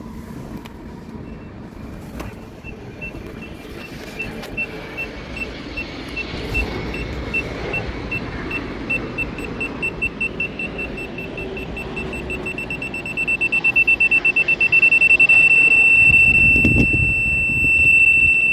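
Aftermarket VEGA VGS24 parking-sensor buzzer beeping at a high pitch, a few beeps a second at first, then faster as the rear bumper sensors pick up an approaching obstacle. Over the last few seconds the beeps merge into one continuous loud tone, the warning for an object very close. A low thump near the end.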